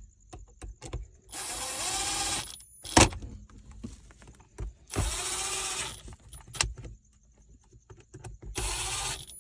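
Cordless drill/driver running in three short bursts of about a second each, driving screws back in, with a sharp click after the first burst and small ticks between them.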